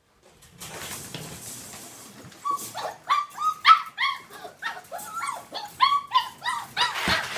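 An Australian Shepherd barking in rapid, high-pitched yips, about three a second, starting about two and a half seconds in after a stretch of rustling noise.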